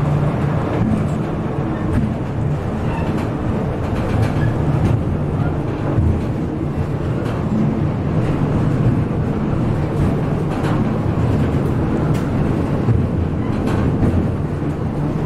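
Babbacombe Cliff Railway funicular car running along its track, heard from inside the car: a steady low rumble of wheels on rails with scattered clicks and knocks.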